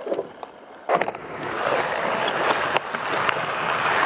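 Skateboard wheels rolling on rough asphalt, a steady gritty rolling noise that grows louder. A sharp clack of the board comes about a second in.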